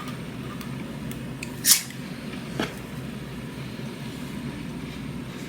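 A sharp click about two seconds in and a fainter click about a second later, over a steady low hum.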